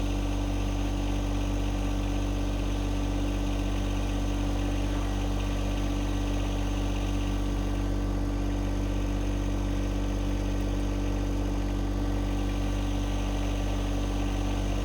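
John Deere 2025R compact tractor's three-cylinder diesel engine running steadily at an even pitch.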